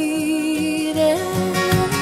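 Gospel-country hymn music: a long held melody note with a slight waver, stepping up in pitch about a second in, over guitar and a steady bass pulse.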